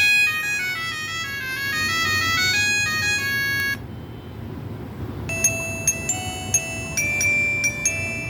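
Built-in ringtones of a Q-Mobile ME114 mobile phone. A quick electronic melody of beeping notes stops about four seconds in, and after a short pause a different ringtone starts, a tune of short, sharply struck notes.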